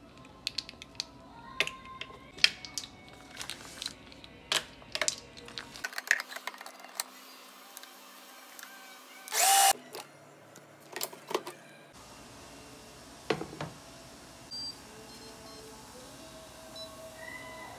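Clicks, taps and scrapes of plastic kitchenware: a measuring spoon in a plastic jar and a food processor's plastic bowl and lid being handled. One louder, half-second burst comes about nine and a half seconds in.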